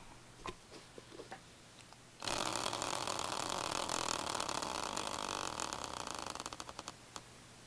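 Tabletop prize wheel spun by hand, its pointer flapper ticking rapidly against the pegs. The clicks start suddenly about two seconds in, then spread out as the wheel slows, and stop shortly before the end. A few faint taps of handling come before the spin.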